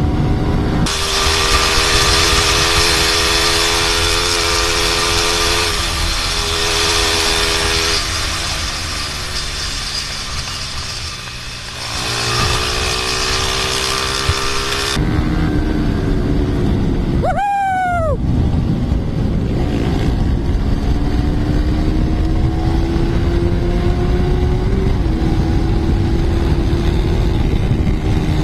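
Motorcycle engine running at road speed, recorded by an onboard camera with heavy wind rush over the microphone for the first half. Later the engine note climbs steadily as the bike accelerates, with a gear change near the end. About two-thirds of the way through there is a brief, sharply falling swoop.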